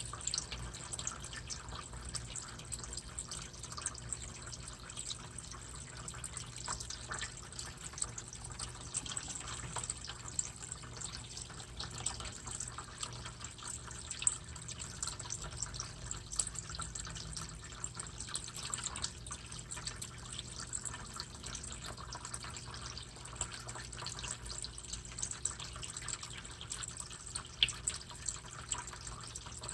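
Water trickling and dripping steadily, with many small drips and splashes throughout.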